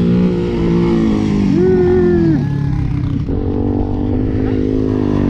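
Off-road vehicle engine running under load, its pitch shifting up and down as the throttle is worked and settling lower about two and a half seconds in.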